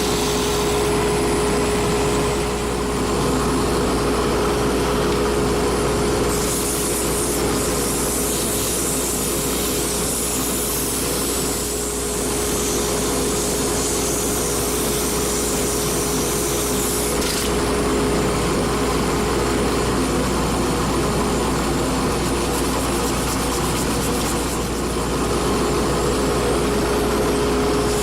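Wood lathe running with a steady motor whine while turning a sycamore pen blank. A higher hiss comes in about six seconds in and stops around seventeen seconds in.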